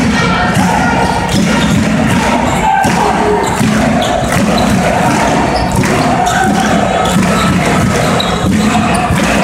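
Basketball being dribbled on a hardwood court, the bounces heard through steady arena crowd noise with voices.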